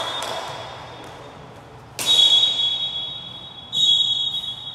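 Referee's whistle blown twice: a long shrill blast about two seconds in, starting with a sharp knock, and a shorter blast near the end, signalling a stoppage in play.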